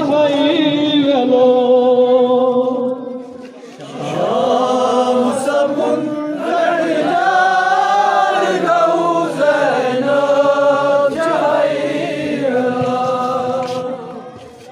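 Men's voices chanting a noha, a Shia mourning lament, in long held notes. The chant breaks off briefly about three seconds in, then resumes, and it fades near the end.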